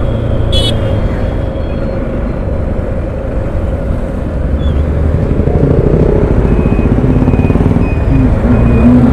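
Motorcycle ride heard from a camera on the rider: the bike's engine running under steady wind and road rumble amid surrounding city traffic, growing a little louder past the middle.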